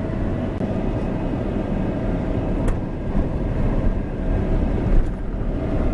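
Car driving on a dirt road: a steady low rumble of engine and tyres on the unpaved surface, with a few sharp knocks, the loudest about five seconds in.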